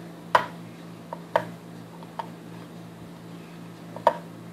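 Rolling pin knocking against a wooden cutting board while bread slices are rolled flat: five short, sharp knocks, the loudest about a third of a second in and again near the end. A steady low hum runs underneath.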